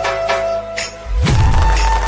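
Indian-style background music with a melody line and regular percussion strikes, then a deep bass hit swelling about a second in.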